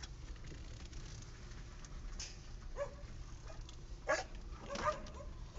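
Stray dogs giving a few short barks, the loudest about four seconds in, over a low steady rumble.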